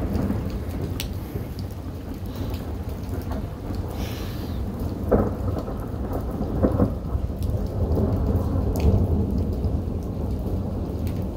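Thunder rumbling continuously, with sharper crackling peals about five, seven and nine seconds in that sound like big ice cracking.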